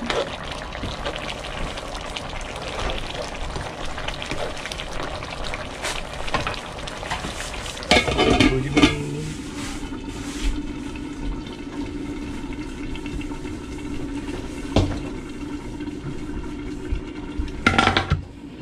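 Fish soup bubbling in an electric wok, stirred with a ladle. About eight seconds in the lid is set on with a clatter, leaving a steady low hum, with a few knocks near the end.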